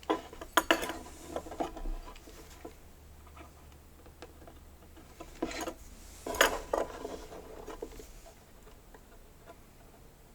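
Light clattering and knocking of small wooden pieces and tools being handled and set down on a workbench, in two bursts of clicks and taps with a pause between.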